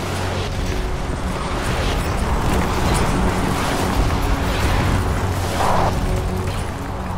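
Film battle soundtrack: a sustained musical score under a dense rumble of explosions, the rumble swelling through the middle.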